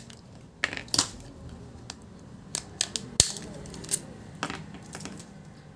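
Hard plastic clicking and clattering as a small screwdriver pries apart the plastic end housings of a fluorescent-tube electronic ballast fitting, with a series of separate clicks and one sharp snap about three seconds in.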